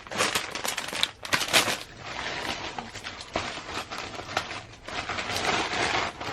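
Packaging rustling and crinkling in irregular bursts as it is handled, with a few sharp clicks.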